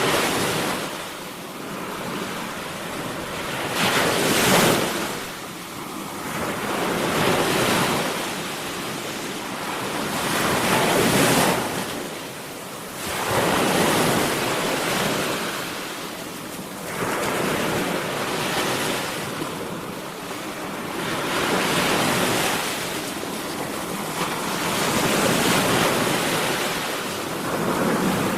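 Sea waves breaking and washing in, swelling and receding every few seconds.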